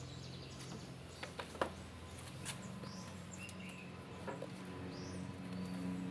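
A few light clicks and taps over a steady low hum, with faint short bird chirps in the background.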